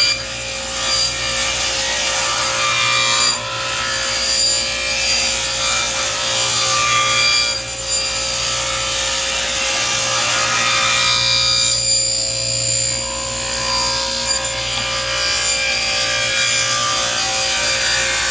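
Running table saw blade grinding into the underside of a board as the board is turned slowly over it on a pivot, wearing through the wood little by little to cut a circle. There is a steady whine under a continuous rasping scrape, with a few brief dips in loudness.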